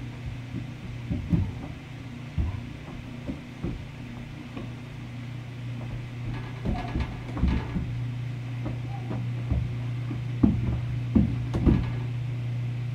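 A steady low hum with scattered small knocks and clicks over it, more of them in the second half.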